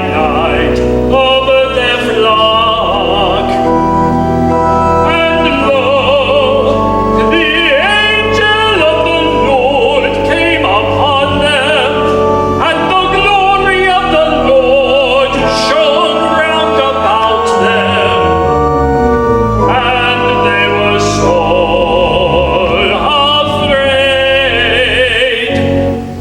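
Church choir singing a sacred Advent piece with instrumental accompaniment; several voices sing with wide vibrato over held notes. The music dips briefly at the very end.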